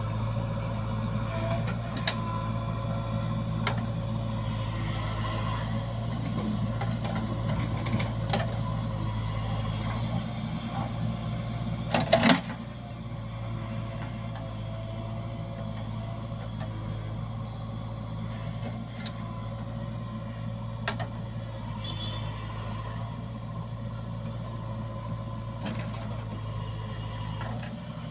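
JCB 3DX backhoe loader's diesel engine running steadily under work. There are a few light clicks and one loud metallic clank about twelve seconds in, after which the engine settles quieter.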